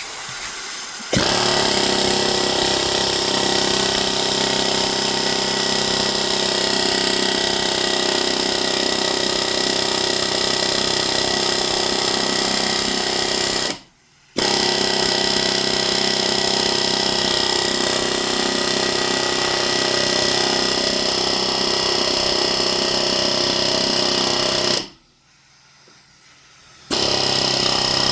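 Pneumatic air hammer rattling continuously, driving at a stuck locking wheel nut key to free it. It runs in three long bursts, with a short break near the middle and a two-second pause near the end.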